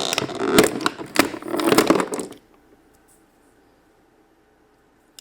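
Plastic toy pieces being handled, clattering and crackling with many sharp clicks for about two seconds, then stopping.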